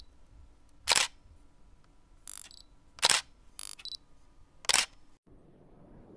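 Camera shutter clicks: five short snaps, three loud and two fainter, spaced about a second apart.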